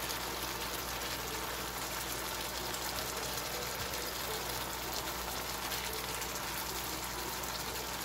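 Lamb tibsi sizzling and bubbling in a frying pan: a steady hiss with fine pops.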